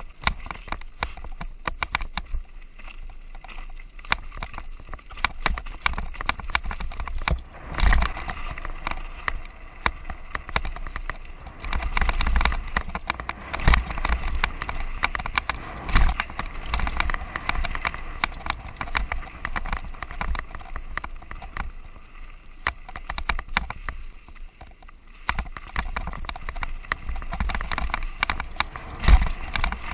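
Downhill mountain bike ridden fast over a rocky dirt trail, heard from a camera mounted on the rider: constant rattling and knocking of tyres, frame and mount over stones, with several heavier thumps.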